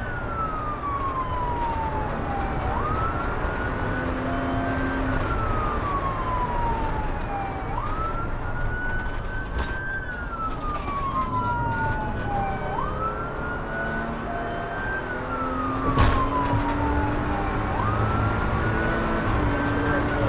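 Police car siren on wail: a slow falling glide, then a quick rise and a short hold, repeating about every five seconds, heard from inside the pursuing patrol car over steady engine and road noise. A single sharp knock about sixteen seconds in.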